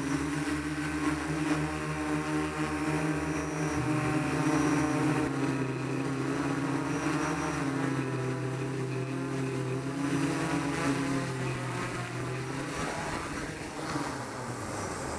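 Electric motors and propellers of a small remote-controlled aircraft, heard from its onboard camera: a steady hum whose pitch steps up and down several times, then dies away near the end as the craft settles on the ground.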